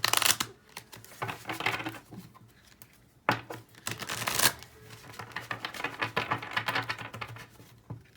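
A deck of tarot cards being shuffled by hand, in several short bursts of rapid flicking with brief pauses between them.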